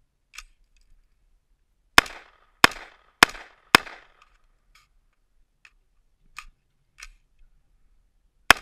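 AR-15 rifle firing four quick shots about half a second apart, followed by a few fainter sharp cracks and another shot right at the end.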